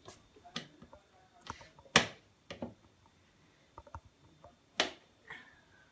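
Scattered light clicks and knocks as a plastic tub of coconut oil is handled on a kitchen counter, with two sharper knocks, one about two seconds in and one near the end.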